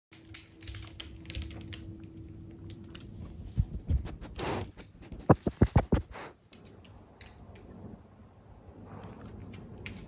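Quick small wet clicks of a kitten lapping pet milk from a dish, with a handful of louder low knocks about halfway through.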